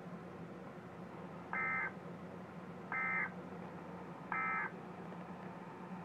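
Three short bursts of Emergency Alert System digital data tones, each about a third of a second long and spaced a little over a second apart: the end-of-message code that closes the severe thunderstorm warning.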